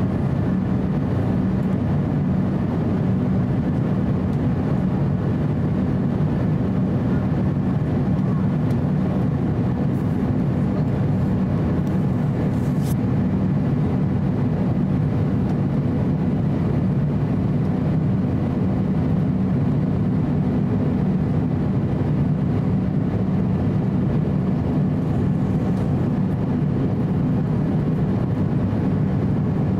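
Steady cabin noise of an Airbus A350-900 in flight, heard from a window seat over the wing: a constant low rumble of airflow and its Rolls-Royce Trent XWB engines, with a faint steady hum on top.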